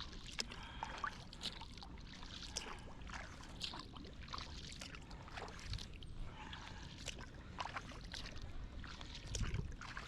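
Kayak paddling on calm sea: the paddle blades dip and splash at irregular intervals, and water drips and trickles off them, over a low steady rumble.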